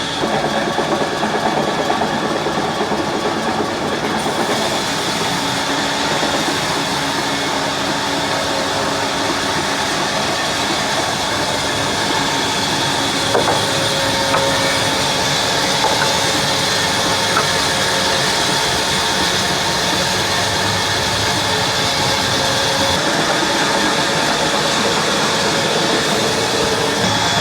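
Sawmill band saw running steadily through a log, a loud continuous machine whine and hiss with a couple of brief clicks midway.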